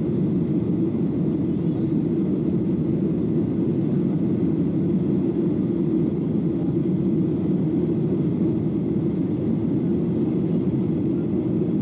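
Steady cabin noise inside a Boeing 737-700 in flight: an even, low hum of engines and rushing air, unchanging throughout.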